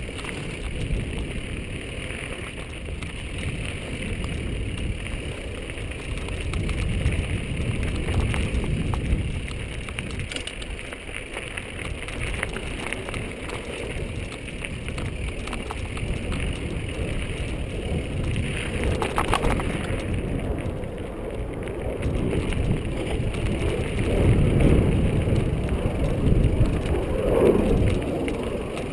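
Mountain bike riding over a dirt singletrack: tyres crunching on the dirt and the bike rattling over rough ground, with wind rumbling on the microphone. The sound is a steady, noisy rumble that swells in places.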